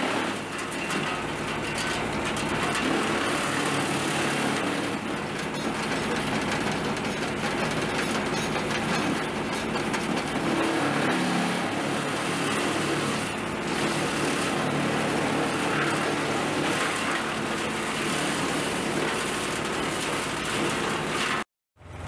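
Tractor-PTO-driven Wood-Maxx WM-8H wood chipper running and chewing up branches fed into it, with the tractor engine pulling under load: a loud, dense, steady mechanical racket. It cuts off suddenly near the end.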